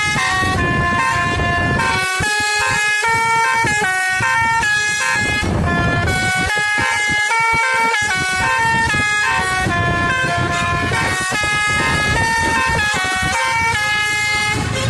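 Telolet basuri bus horn, a multi-tone horn with roof-mounted trumpets, playing a melody without a break, its notes stepping up and down quickly, over a low rumble of engine and road noise.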